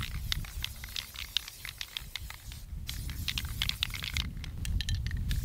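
Aerosol spray paint can hissing in bursts, with a short break a little before halfway and another shortly before the end, mixed with crackling rustles and a low rumble.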